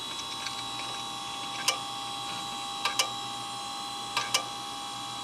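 Failing Western Digital 10 GB IDE hard drive's click clunk: sharp clicks, one and then two quick pairs, about every one and a half seconds, over a steady high whine. The clicking is the symptom of the drive having died.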